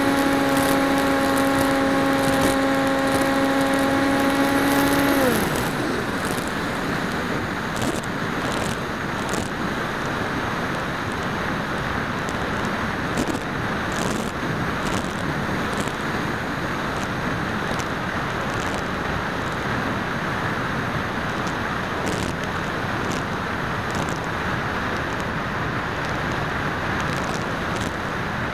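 Folding PopWing's electric motor and propeller whining at a steady pitch, until the throttle is cut about five seconds in and the pitch falls away to nothing. The rest is air rushing over the onboard camera's microphone as the wing glides unpowered, with occasional light ticks.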